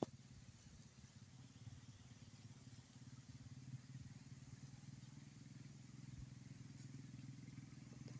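Near silence with a faint steady low hum.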